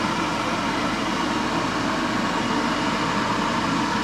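Steady, even rushing noise of a kitchen exhaust fan running, with no distinct knocks or clatter.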